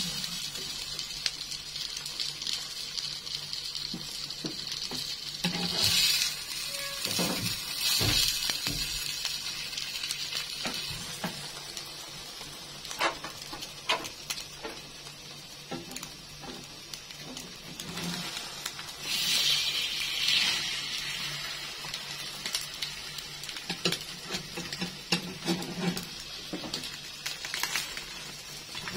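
Egg-and-bread 'pizza' frying in a non-stick pan, sizzling steadily with a few louder swells, while a slotted metal spatula scrapes and taps against the pan now and then.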